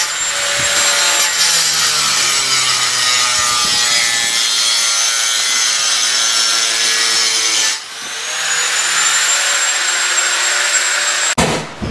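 Handheld power tool cutting through ceramic wall tile around a bathtub: a loud, high motor whine over a gritty cutting noise. About eight seconds in it eases off, then winds back up to speed, and it stops shortly before the end.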